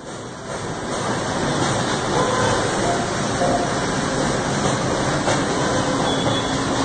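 AMADA Pega 345 King CNC turret punch running idle, a steady rushing machine hum that swells up over the first second and then holds even, with no punching strokes.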